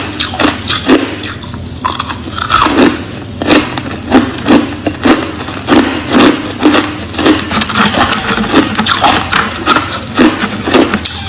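Close-up crunching of crushed clear ice being bitten and chewed, sharp crunches coming steadily about twice a second.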